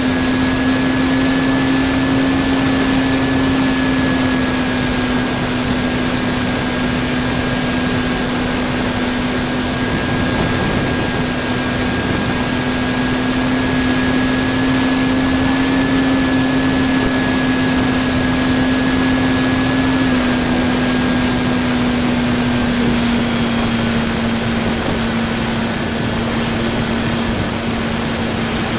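Electric motor and propeller of an RC park-flyer plane, heard from a camera strapped in its cockpit, holding a steady whine over heavy wind rush in flight. The pitch dips slightly about twenty seconds in, as the throttle eases.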